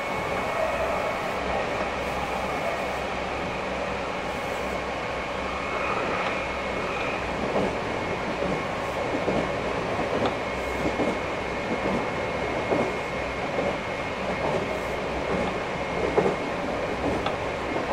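Cabin running sound of a Meitetsu 2300 series electric train at speed: a steady rumble of wheels on rail with a thin, steady high tone, and irregular knocks of the wheels over the track that come more often in the second half.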